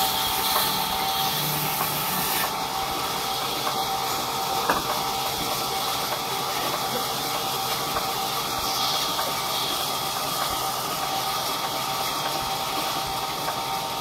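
Large belt-driven band saw at a sawmill running steadily: a constant mechanical hiss with a faint steady whine. There is a single sharp knock about five seconds in.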